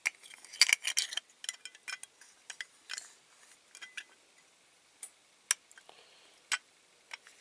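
Small sharp clicks and taps of hard plastic and diecast metal parts being handled, as a plastic window unit is pressed into a diecast toy lorry cab. The clicks come thick and fast over the first two seconds, then sparser.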